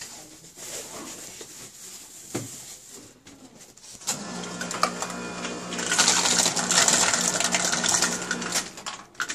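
Follett Symphony ice dispenser's motor starting with a steady hum about four seconds in. From about six seconds, ice clatters loudly down its chute into a foam cup for roughly three seconds, then the motor stops.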